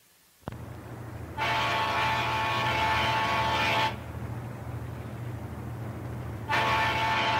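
Riverboat horn sounding one long blast of about two and a half seconds, then a second blast starting near the end, over the steady low rumble of the boat's engines.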